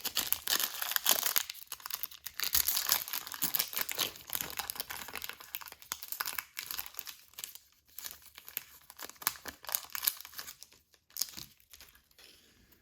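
Crinkling and tearing of a trading-card pack wrapper being torn open and handled, in dense irregular crackles that thin out and stop near the end.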